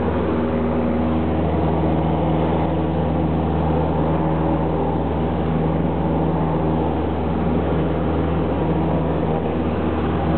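Light single-engine plane's engine and propeller droning steadily at a constant pitch, heard from inside the cabin during the climb after takeoff.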